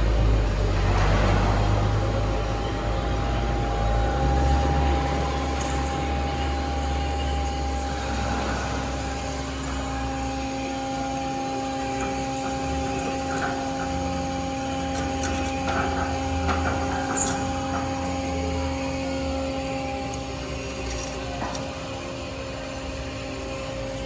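Steady mechanical hum of shop machinery, with a low rumble that eases after about ten seconds and a few light clicks and clanks in the middle.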